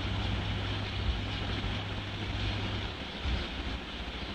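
Chopped onion sizzling in hot oil in a nonstick kadai as it is stirred with a spatula, a steady hiss with a low hum underneath.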